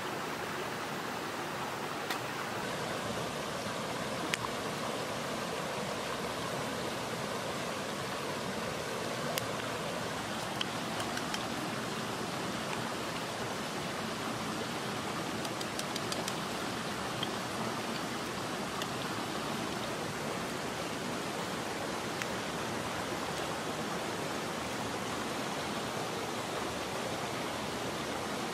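Steady rushing of a mountain stream, with a few faint sharp clicks now and then.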